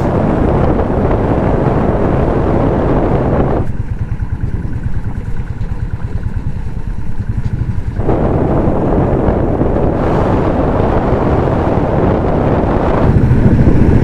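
Motorcycle engine running under way, with wind rushing over the microphone. The sound drops for a few seconds in the middle, then comes back as before.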